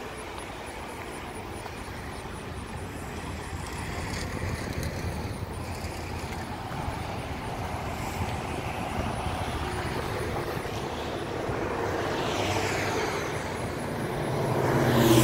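A motor's drone over outdoor background noise. It grows louder over the last few seconds as it comes closer, with a sweeping, shifting tone as it nears.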